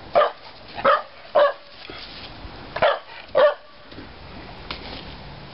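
A dog barking five times: three quick barks in the first second and a half, then two more about three seconds in.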